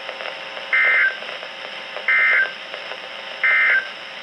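Emergency Alert System SAME data tones on a weather radio broadcast: three short, identical warbling digital bursts about a second and a half apart, the end-of-message signal that closes the severe thunderstorm warning.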